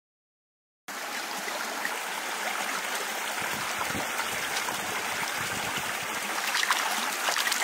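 Shallow stream water running and trickling over rocks, starting about a second in. Near the end, splashing and dripping as clumps of wet river algae are lifted from the water.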